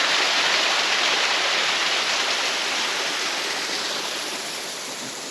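Small stream running over the ground, a steady rush of water that slowly grows quieter.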